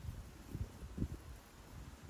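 Wind buffeting the microphone in uneven low gusts.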